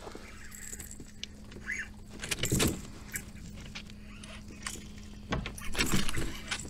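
Baitcasting reel being cranked and a fishing rod handled in a kayak: a metallic clinking and a few sharp knocks, the loudest about two and a half seconds in and a cluster near the end, over a steady low hum.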